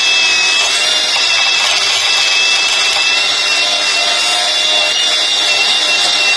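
Electric power tool running steadily at full speed, a continuous loud noise with a high, even whine from its motor.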